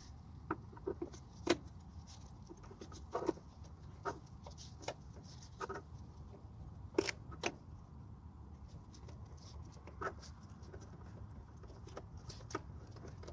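Gloved hands fastening a car's plastic tail light housing back in place with a screw: scattered light clicks and taps, a few sharper than the rest, over a low steady background rumble.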